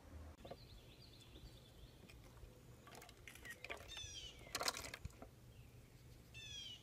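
Faint high chirping calls in quick runs of falling notes, about four seconds in and again near the end, among scattered light clicks and knocks of plastic bottles and a plastic crate being handled.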